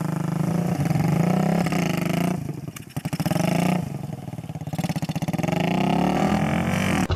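Dirt bike engine revving as the bike rides off, its pitch climbing and falling with the throttle, and easing off briefly about halfway through.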